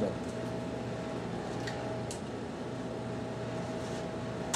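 Steady background hum of a kitchen with a faint constant tone, two faint light ticks in the middle and a sharper knock right at the end.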